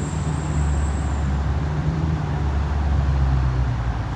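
Dodge Scat Pack's V8 running at a steady cruise with road noise, a low engine drone that eases off near the end.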